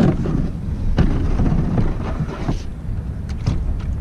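Wind buffeting the camera microphone, with a few knocks and thumps from the boat's hull and fittings as someone climbs aboard.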